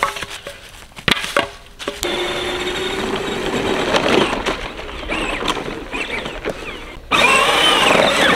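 Battery-powered John Deere ride-on toy tractor driving over dry leaf litter: its plastic wheels rumble and crunch through the leaves over a faint steady motor hum, after a few knocks in the first two seconds. About seven seconds in, a sudden louder rush of noise comes in.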